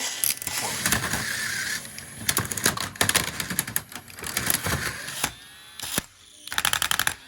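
Rapid clicking and clattering with bursts of rustling, like plastic packaging and toy parts being handled while the box is unpacked, ending in a quick run of evenly spaced clicks.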